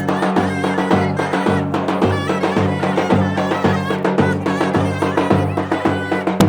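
Turkish wedding halay dance music: a steady drum beat under a loud, ornamented melody.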